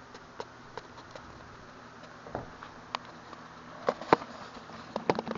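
Handling noises from a steel tape measure being fetched and a handheld camera being moved: faint regular ticking, then a few sharper clicks and knocks about four and five seconds in.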